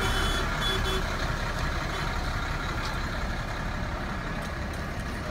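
Large bus engine running with a steady low rumble close by, with a few short high beeps in the first second.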